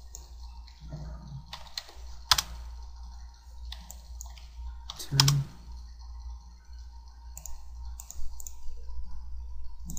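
Computer keyboard and mouse clicks, scattered and irregular, with two louder sharp clicks a couple of seconds and about five seconds in, over a low steady hum.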